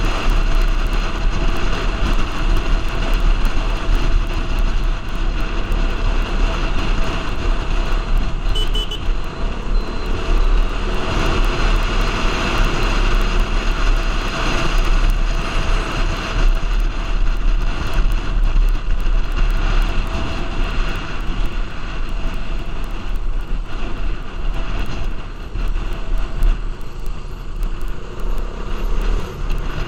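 Motorcycle riding at road speed: the engine runs steadily under a constant rush of wind noise and low rumble on the microphone.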